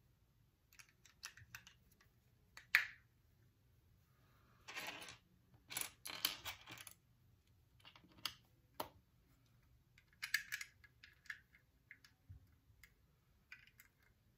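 Small plastic building bricks clicking and rattling as they are handled and pressed together: scattered sharp clicks and short clattering runs, the loudest a single click about three seconds in.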